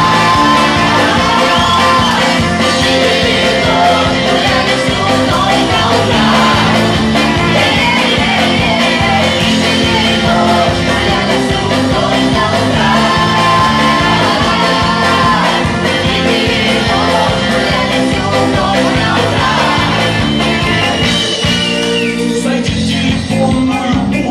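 Loud dance music with singing and a steady beat playing for dancing.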